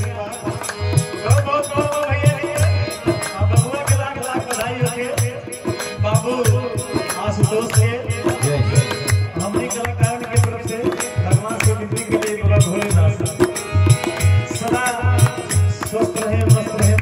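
Sohar folk-song music: a harmonium holding chords while a dholak beats a steady rhythm, with light, sharp percussion clicks over it.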